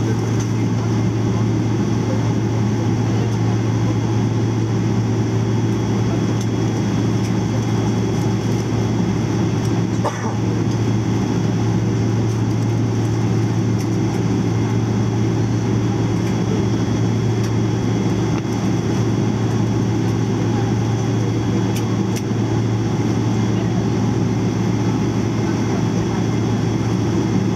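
Steady cabin drone inside a Boeing 777-300ER taxiing slowly with its GE90 engines at idle, dominated by a strong low hum. A faint click comes about ten seconds in.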